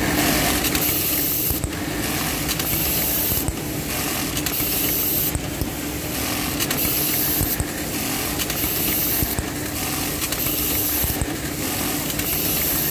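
Brother button-attaching sewing machine with an automatic pneumatic button feeder working through repeated button cycles, over a steady hum. Each cycle brings a burst of stitching and a hiss of compressed air, about once every two seconds.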